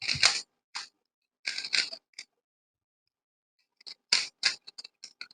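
3x3 Rubik's cube being turned by hand, its plastic layers clacking in short bursts. The turns pause for about a second and a half midway, then come as a quick run of turns near the end.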